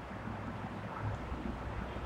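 Steady low hum over a faint even background noise, with a soft bump about a second in.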